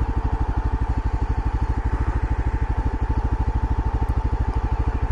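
Motorcycle engine running steadily at low revs, an even pulsing beat of about fourteen pulses a second.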